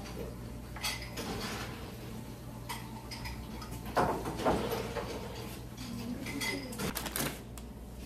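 Tableware clinking and knocking: dishes and cutlery set down or handled a few times, the clearest knocks about a second in, halfway through and near the end, over a low steady hum.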